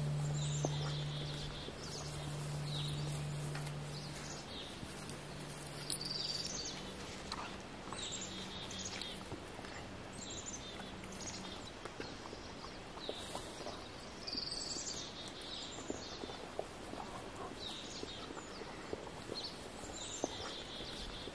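Songbirds chirping in a pine forest, many short high calls scattered throughout. A low steady hum fades out over the first few seconds.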